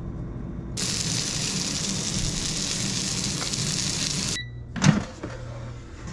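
Chicken breasts sizzling in oil in a stainless steel frying pan, a loud, even hiss that stops abruptly about four seconds in. After that comes a brief high beep, a sharp knock and a low hum as an air fryer basket is handled.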